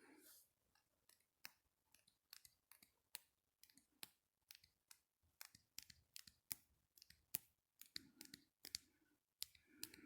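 A quick, irregular series of light, sharp clicks, roughly two to four a second.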